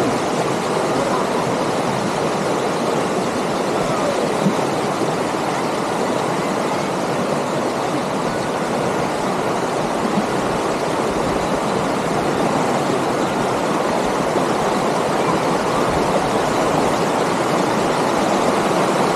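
River water flowing steadily over a shallow, rocky bed: an even, unbroken rush.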